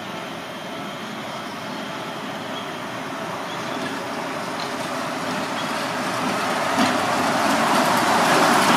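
Seibu 8500 series rubber-tyred people-mover train running along its concrete guideway toward the listener. Its running noise grows steadily louder as it approaches and passes close underneath, with a single brief knock near the end.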